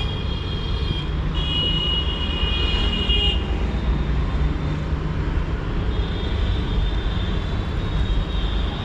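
Steady rumble of road traffic and vehicle engines, with a thin high-pitched whine that comes and goes twice.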